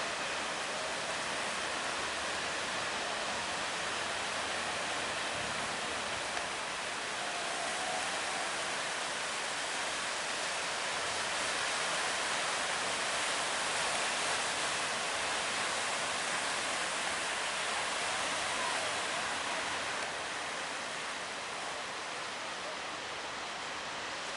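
Steady rushing hiss of sea water and wind around a boat in big waves. It swells a little about halfway through and eases slightly near the end.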